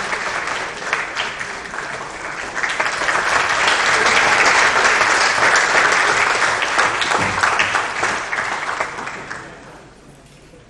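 Audience applauding, a dense patter of many hands clapping that swells a few seconds in and dies away near the end.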